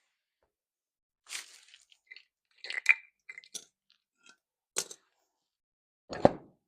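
Scattered clicks, scrapes and clinks of metal parts being handled as a front wheel is fitted onto a garden tractor's axle and secured with a C-clip, with a dull thud about six seconds in.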